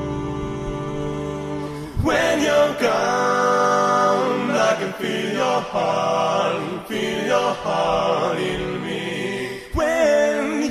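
Song with layered sung vocal harmonies. A held chord over deep bass opens it; about two seconds in, the bass drops away and stacked voices take over, with a brief break shortly before the end.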